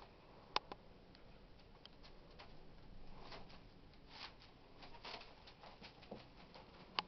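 Faint scuffling and rustling of puppies and a dog moving about on newspaper and bedding, with a few sharp clicks.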